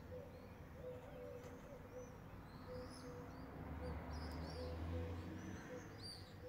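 Swifts calling: faint, short, high screams scattered through, several at a time.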